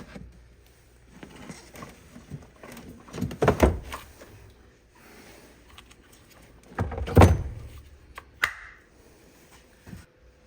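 New car battery being lowered and set into its tray, with two heavy thunks a few seconds apart, the second the loudest, and smaller knocks and scrapes as it is shifted into place.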